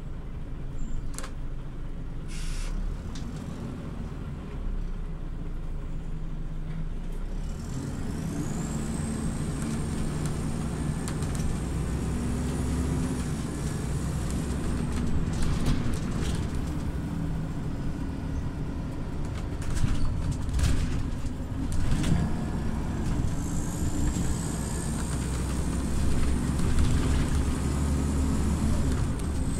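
Scania OmniLink CL94UB city bus heard from inside, its diesel engine pulling away about eight seconds in, with a high drivetrain whine rising with speed. The engine pulls up again near the end. A short hiss comes about two seconds in, and a few knocks and rattles come over the road.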